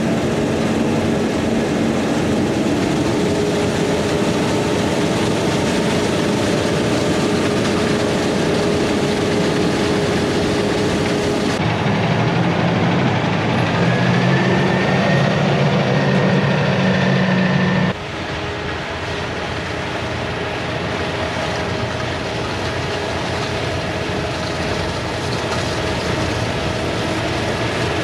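Heavy diesel farm machinery running steadily. The engine sound changes abruptly about twelve seconds in and again about eighteen seconds in, where it gets a little quieter.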